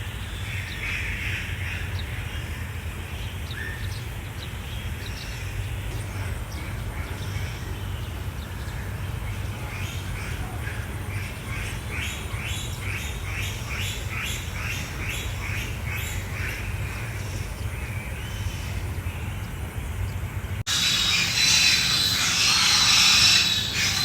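Birds chirping, with a quick run of repeated calls in the middle, over a steady low rumble. Near the end the sound cuts abruptly to a louder high hiss.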